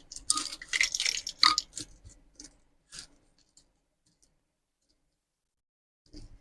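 Small objects being handled: a dense run of clicks and crackles for about two seconds, thinning to a few separate clicks, then quiet, with one more click near the end.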